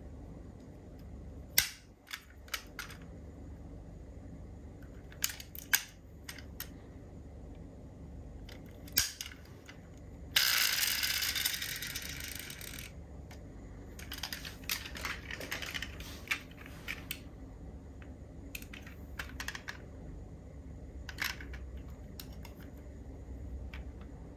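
Diecast model cars handled in the hand: scattered small clicks and ticks, singly and in quick clusters, as metal and plastic parts are moved. About ten seconds in comes a sudden rushing noise lasting about two and a half seconds that fades as it goes.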